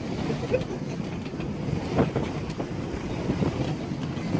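Moving tour boat: steady low rumble of the boat under way with wind buffeting the microphone, and a brief knock about two seconds in.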